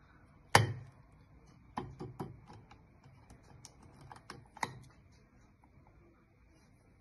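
Sharp clicks and taps from a small dessert cup being handled against a ceramic plate as a crème caramel is turned out of it. The loudest click comes about half a second in, and a run of lighter taps follows between about two and five seconds in.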